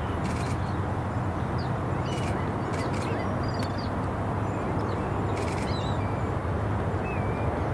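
Birds chirping with short, quick calls over a steady low rumble that grows a little louder toward the end.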